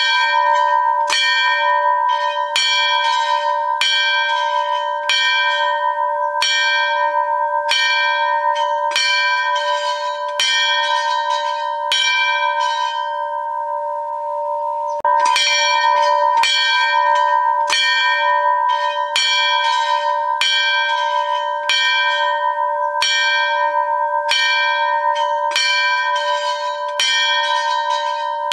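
A temple bell rung over and over, about one and a half strikes a second, its ring hanging on between strokes. Near the middle the striking stops for about two seconds while the ring fades, then it resumes.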